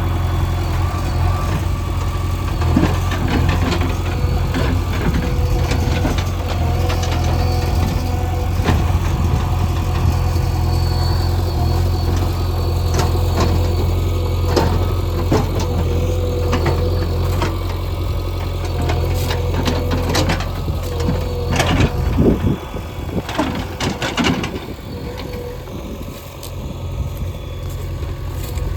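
Diesel engine of a backhoe loader running steadily at work, with scattered knocks and clatter from stones being handled. About 22 seconds in, the deep engine drone drops away and the sound turns quieter and uneven.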